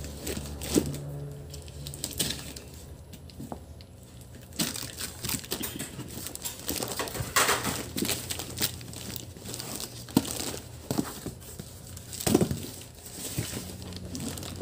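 Parcel packaging being opened by hand: paper, cardboard and plastic wrapping rustling, crinkling and tearing in irregular bursts, with a few sharp knocks from the box being handled.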